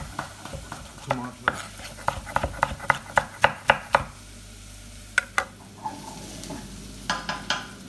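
Chef's knife slicing tomatoes on a wooden chopping board: a quick run of sharp knocks of the blade on the board, about four a second, that stops about four seconds in, with a few more knocks later. Underneath, onions fry in hot oil in a pot with a faint steady sizzle.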